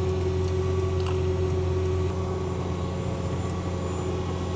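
Tractor engine running steadily while pulling an air seeder through the paddock, heard from the cab: a constant low drone with a steady whine over it and a few faint ticks.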